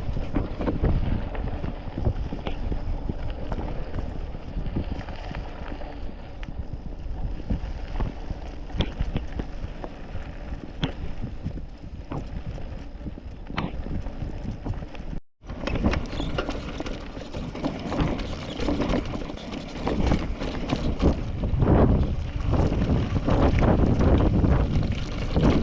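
Mountain bike riding downhill on a rough track: wind buffeting the microphone, with tyre noise and the rattle and knocks of the bike over the ground. The sound breaks off for an instant about fifteen seconds in and comes back louder and rougher.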